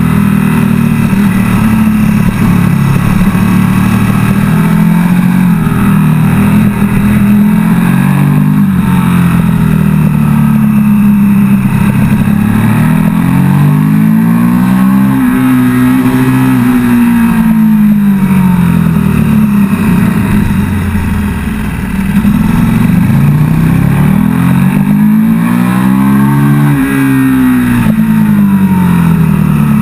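KTM 1290 Super Duke GT's V-twin engine being ridden hard, its revs climbing and falling again and again through the corners and gear changes. The engine note briefly drops in level about two-thirds through.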